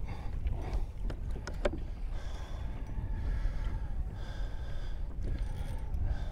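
Wind on the microphone and water against a fishing kayak's hull, a steady low rumble, with a few sharp clicks about a second in and faint, on-and-off whirring in the middle.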